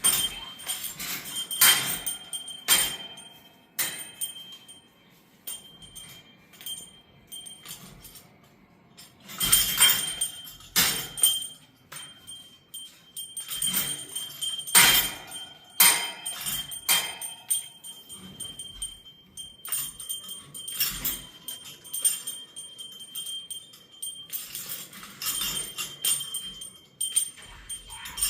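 A small metal bell on a bird toy jingling and clanging in irregular bursts as a cockatoo shakes and knocks it, with a quieter stretch a few seconds in.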